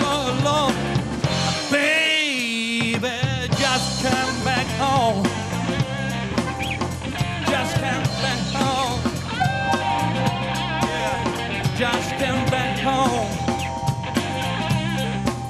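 Blues band playing live: electric bass, electric guitar, drums, keyboard and harmonica, with a man singing into the microphone. Briefly, about two seconds in, the bass and drums drop out under a single wavering held note, then the full band comes back in.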